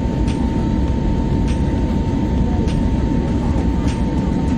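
Steady low rumble of an airliner's engines and rushing air heard inside the cabin in flight, with a constant thin whine above it.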